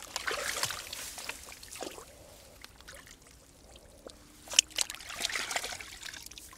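Muddy water splashing and sloshing as hands grope through it for a fish, in two spells, with a sharp click about four and a half seconds in.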